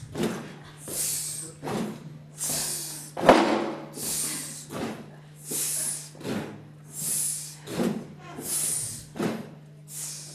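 A man's rhythmic vocal hissing and breathing: sharp hisses alternate with lower voiced, breathy bursts about every 0.7 s, over a steady low hum.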